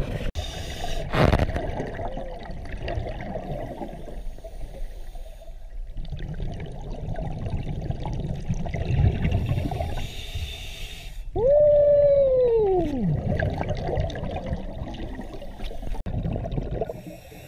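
A scuba diver breathing underwater through a regulator: hissing inhalations alternate with long bubbling exhalations. About eleven seconds in, a single falling whine slides down in pitch over a second or so.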